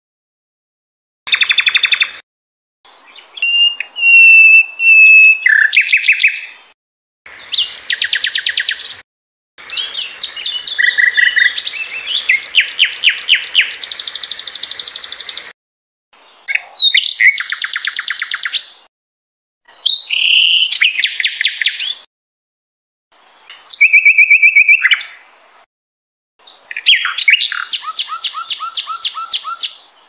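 A sikatan londo songbird singing a string of short, varied phrases: trills, whistled notes and fast runs of repeated notes, with brief silences between them. It is a masteran (song-tutoring) recording, the song carrying imitations of other songbirds such as cucak ijo and murai batu.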